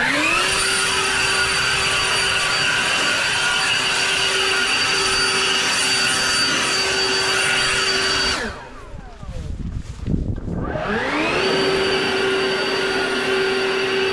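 Backpack leaf blower at full throttle, a loud steady high whine. It is let off about eight seconds in and winds down, then throttled back up about two seconds later.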